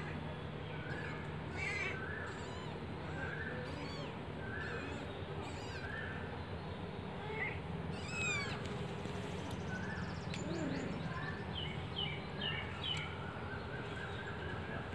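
Kittens mewing over and over, short high-pitched calls coming about once or twice a second.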